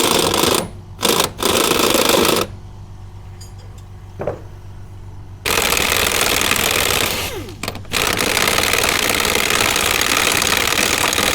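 Pneumatic impact wrench with a 24 mm impact socket hammering on a wishbone fulcrum pin bolt that is stuck in its bushes, in bursts: three short bursts in the first couple of seconds, then two long runs of several seconds each. A steady low hum runs underneath.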